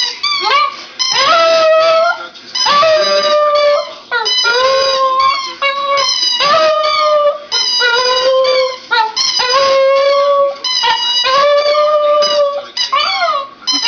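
Border terrier howling: a series of long, held howls, each about a second, with short breaks between them.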